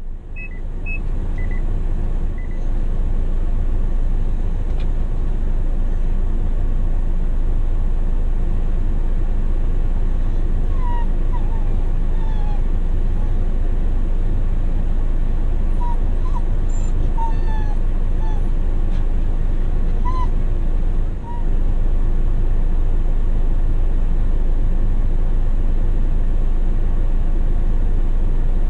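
Steady low rumble of a car in motion, the road noise heard from inside, with a few faint short high chirps or squeaks in the middle stretch.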